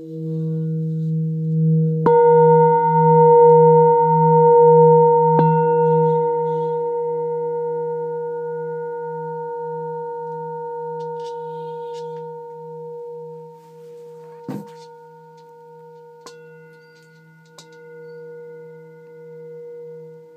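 Metal singing bowl ringing with a low, slowly wavering hum. It is struck about two seconds in and again a few seconds later, bringing in bright higher ringing tones, and the ring then slowly fades. A few light knocks and clicks come in the second half.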